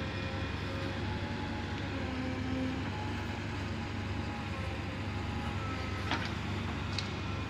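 JCB 3DX backhoe loader's diesel engine running steadily as its backhoe arm digs sand. Two short sharp knocks come about six and seven seconds in.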